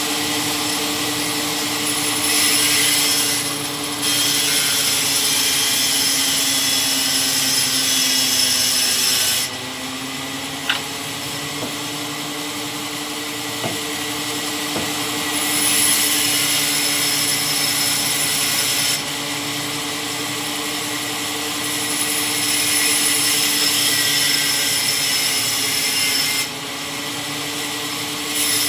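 Powered wood-cutting saw machine with its motor humming steadily, making two long cuts through wood with a loud rasping hiss. Between and after the cuts the blade runs free and quieter, and the motor's hum sags a little under load near the end of the first cut.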